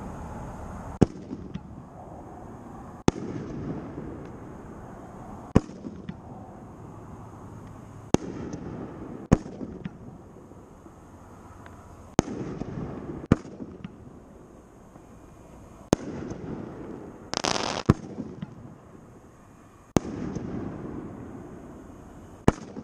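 500-gram consumer firework cake with large 2-inch tubes firing shot after shot: sharp bangs of launches and bursts overhead, about eleven over some twenty seconds, each followed by a rolling rumble. A brief loud hiss a little past the middle.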